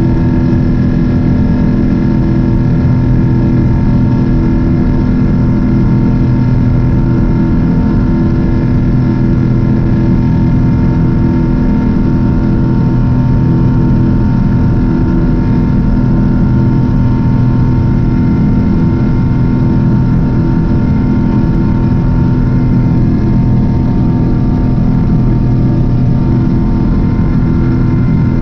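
Cabin noise inside a Japan Airlines Boeing 777-300 climbing out after takeoff: the jet engines and airflow make a loud, steady drone with several steady hum tones over a low rumble.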